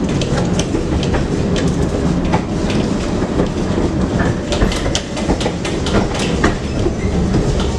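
Tram running along its line: a steady rumble of wheels on rails, broken by many sharp, irregular clicks and knocks as the wheels pass over rail joints.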